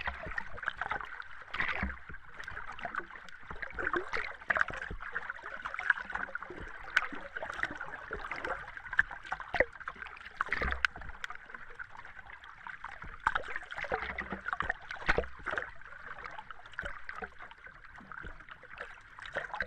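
Underwater ambience: a continuous watery wash with irregular bubbling pops and clicks throughout, and a few low thuds.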